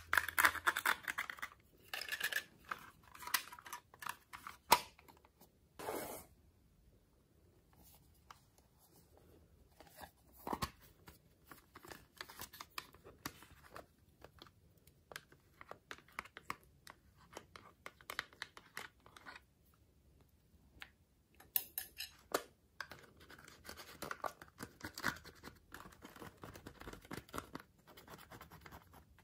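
Small metal spatula scraping and picking pressed eyeshadow and glitter out of the wells of a plastic makeup palette. It makes quick scratchy clicks, busy at the start and again near the end, with quieter stretches between.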